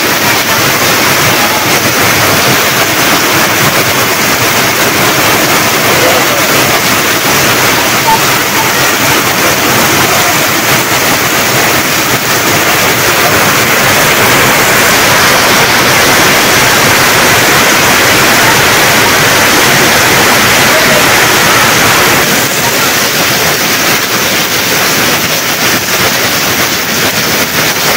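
Heavy rain falling steadily onto corrugated tin roofs and pouring off the roof edges: a loud, even rush that turns slightly duller near the end.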